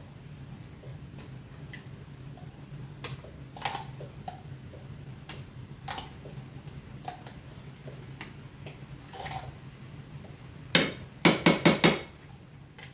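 Metal spoon and pan clatter while garlic is spooned into a skillet: scattered light clicks, then a quick run of about five sharp taps about eleven seconds in, a spoon knocked against the pan. A faint steady low hum runs underneath.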